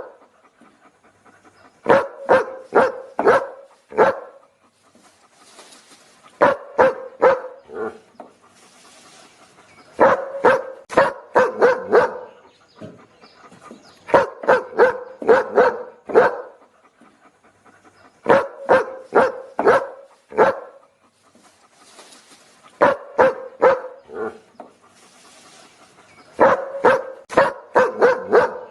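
A dog barking in quick runs of four to six barks, about three barks a second, with a run every four seconds or so and short quiet gaps between the runs.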